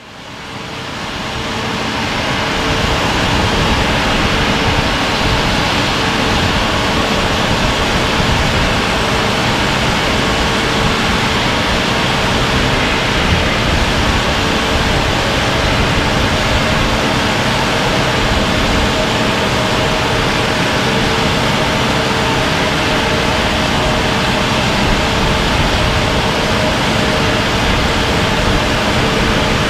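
Drill jumbo working at a tunnel face in rock: steady, loud machinery noise with a low rumble, hiss and a steady hum, fading in over the first couple of seconds.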